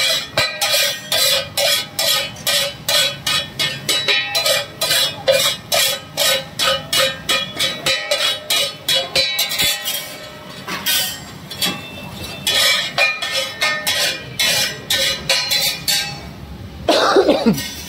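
Steel spatula striking and scraping a large iron tawa while mashing pav bhaji, a rhythmic metallic clatter of about three strikes a second. A brief falling tone near the end.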